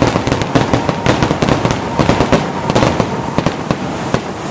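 Aerial fireworks bursting and crackling: a fast, irregular run of sharp pops and bangs that thins out near the end.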